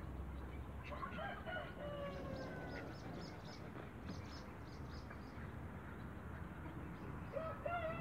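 A rooster crowing: one long drawn-out crow about a second in that slowly falls in pitch, and another crow starting near the end. Quick high chirps come in between.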